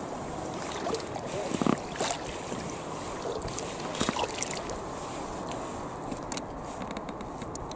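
Kayak paddles dipping into calm water: splashes and drips with a few sharp knocks, over a steady hiss.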